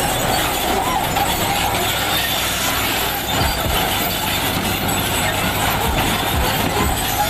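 Excavator at work, its diesel engine running steadily under load along with the machine's mechanical noise.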